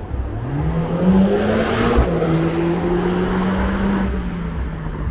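A motor vehicle accelerating past: its engine pitch rises, drops suddenly at a gear change about two seconds in, then holds steady and fades near the end.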